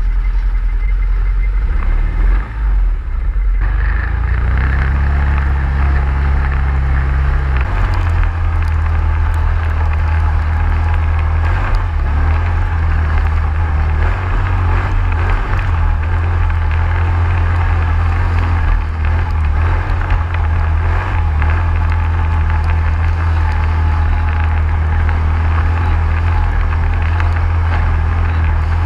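Motor vehicle engine running steadily with a low drone. Its pitch changes twice, about four seconds in and again near eight seconds.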